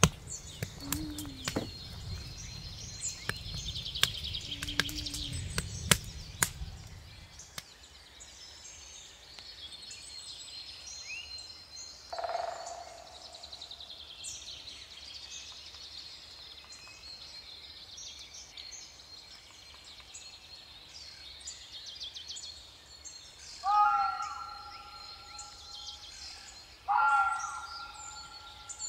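Wood fire crackling and popping over a low rumble for the first several seconds, then forest birds chirping with a thin steady high trill. Near the end a bird gives three loud, harsh calls.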